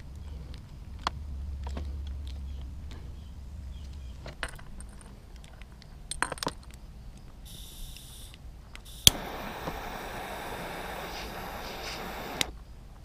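Small clicks and metallic clinks of tools and parts being handled. About nine seconds in, a sharp click starts a steady hiss, which another click cuts off some three seconds later.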